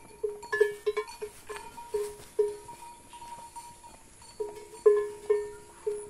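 A cowbell clanking on a moving cow, struck at an uneven pace: each stroke gives one clear ringing note that dies away quickly, with a pause in the middle.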